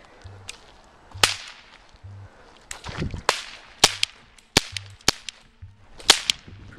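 A toy cap-gun revolver firing a series of sharp cracks, about eight of them at uneven spacing, starting about a second in.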